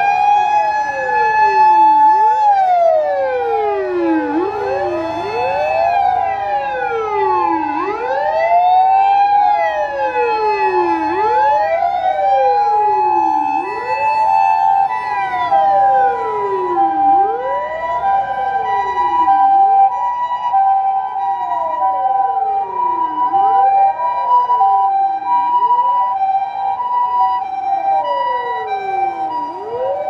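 Several Japanese fire engine sirens wailing together, each rising and falling over a few seconds and overlapping out of step. About halfway in, an ambulance's two-tone hi-lo siren joins them: emergency vehicles running in convoy.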